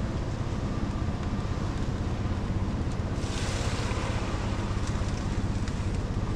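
Steady low drone of an engine running, pulsing evenly, with a brief hiss about three seconds in.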